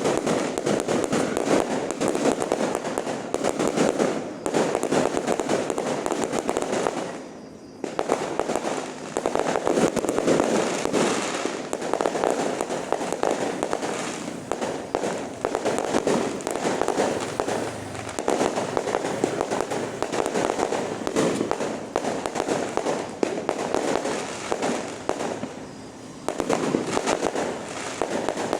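Fireworks display going off in rapid, continuous volleys of bangs and crackles, with a brief lull about seven seconds in and another near the end.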